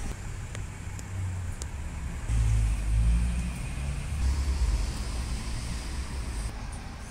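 Road traffic outdoors: a steady low rumble of passing cars that swells from about two seconds in and then eases off.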